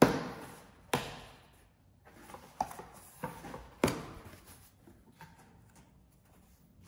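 Cardboard shipping box being torn open by hand: the taped top flaps ripped and pulled up, giving a few sharp cardboard rips and snaps. The loudest come at the very start, about a second in and near four seconds, followed by quieter rustling of the folded-back flaps.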